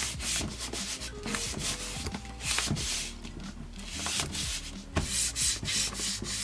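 A hand rubbing and smoothing a freshly glued sheet of white paper down onto a sketchbook's cover and spine, in repeated quick strokes of dry paper friction. The strokes come in clusters, with a short lull in the middle.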